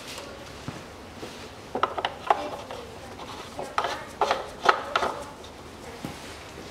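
Plastic oil filler cap being screwed by hand onto a Kia Rio 1.4 engine's valve cover. Short rubbing and clicking strokes come in two clusters, about two seconds in and again around four seconds in.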